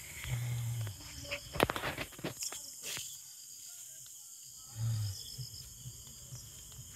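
Crickets and other night insects chirping steadily, with a few scattered knocks and rustles between about one and a half and three seconds in, and two short low hums.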